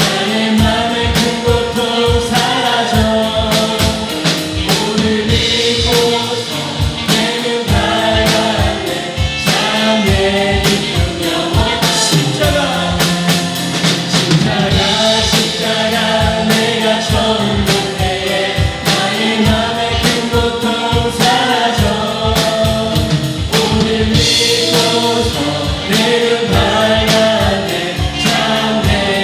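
Live church worship music: a praise band with a steady drum beat, and many voices singing a Korean praise song together.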